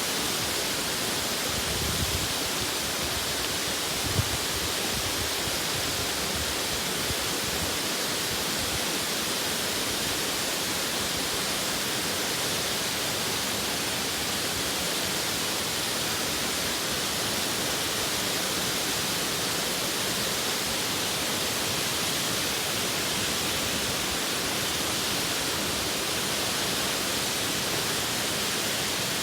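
Waterfall rushing: a steady, dense hiss of falling water. Two brief low thumps about two and four seconds in.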